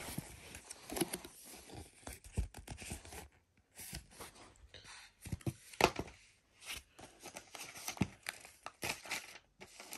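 Paper and cardboard packaging from a MacBook Pro box being handled: irregular rustling and crinkling with scattered sharp clicks and soft knocks, one sharper knock a little past the middle.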